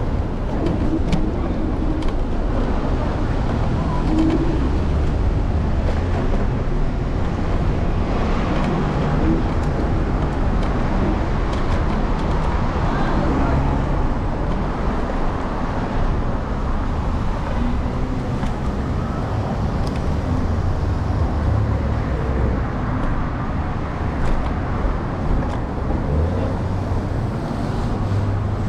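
City street traffic noise, with a low rumble that rises and falls unevenly and a few faint clicks.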